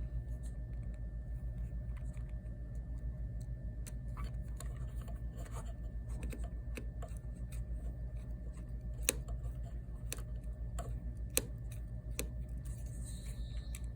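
Scattered light clicks and taps of small tools and parts during smartphone repair work, with two sharper clicks about nine and eleven seconds in, over a steady low hum.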